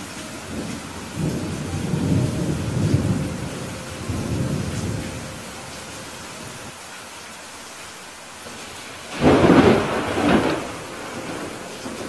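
Steady rain with thunder: a low rolling rumble of thunder through the first few seconds, then a louder, sharper thunderclap about nine seconds in, followed by a second crack a second later.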